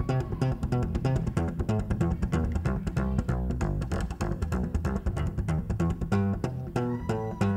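Instrumental break of a live acoustic band: an upright double bass plucked in a quick, driving line with acoustic guitar playing along.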